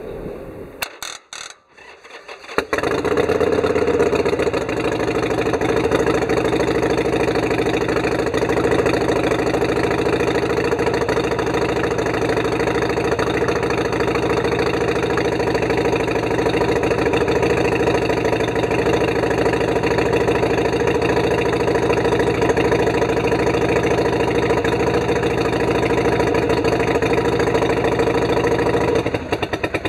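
Harley-Davidson Sportster Iron 883's air-cooled V-twin being started, catching about two and a half seconds in and then idling steadily. The owner says it runs a bit hard and suspects at least one of the spark plugs.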